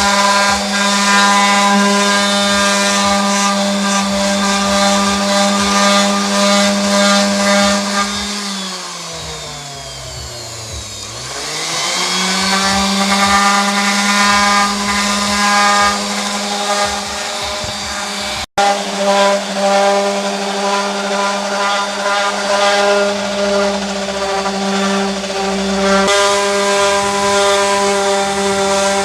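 Electric 4-inch orbital sander running steadily on a plastic headlight lens. Its pitch sags down and climbs back up about a third of the way in, and the sound cuts out for an instant about two-thirds of the way through.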